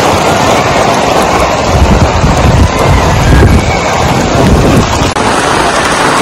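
Heavy rain pouring onto stone paving, with strong wind gusts buffeting the microphone. About five seconds in it gives way to a steadier, lighter rain hiss without the gusts.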